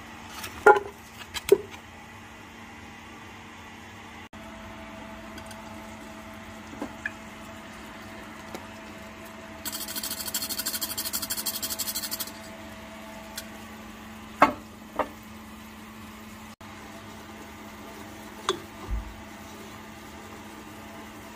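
Cooking in a steel saucepan: a few sharp knocks and scrapes of a wooden spoon against the pan over a steady hum. About ten seconds in, a rapid rasping lasts two or three seconds as flour is poured into the melted butter to start a roux.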